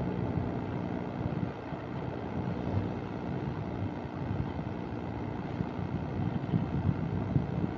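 Steady rumble of a moving passenger train coach, heard from its open door, with wind on the microphone.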